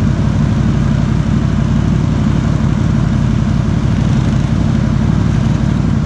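ATV engine idling steadily, with no revving.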